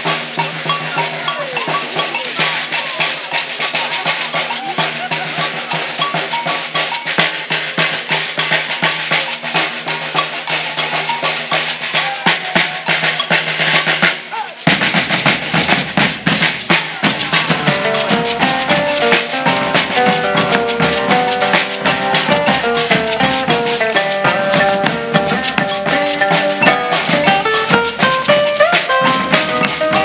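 Maracatu percussion ensemble playing a driving rhythm on alfaia bass drums, caixa snare drums and metal ganzá shakers. About halfway through the sound dips briefly, then a deeper bass enters and a plucked guitar melody joins the drums.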